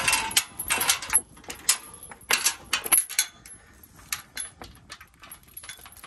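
Chain and latch on a steel tube farm gate rattling and clinking as they are handled: a quick cluster of clanks in the first three seconds, then scattered lighter clicks.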